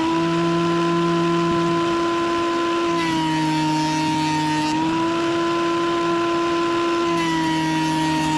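Bauer 15-amp 12-1/2 in. portable thickness planer running, very loud, with a steady high motor whine. About three seconds in and again near the end the whine drops slightly in pitch and a hissing rush rises for a couple of seconds as the motor takes load, the sign of a board passing under the cutter head.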